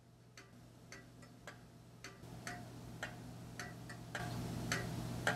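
Regulator-style pendulum wall clock ticking evenly, about two ticks a second, over a low steady hum that grows louder partway through.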